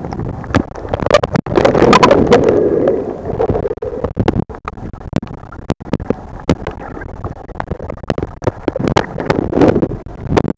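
Small waves sloshing and slapping against a camera held at the water's surface, with many sharp clicks and knocks as water hits it. The splashing is louder about two seconds in and again near the end.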